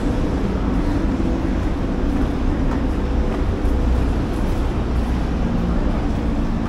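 A car driving, with steady road and engine noise.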